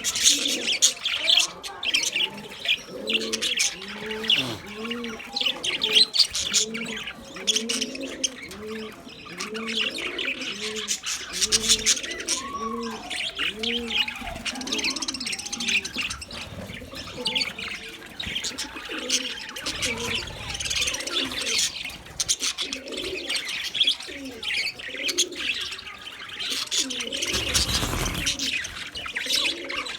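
Budgies chirping and chattering continuously, over a steady series of repeated low cooing notes through the first dozen seconds. A brief rustling thump comes near the end.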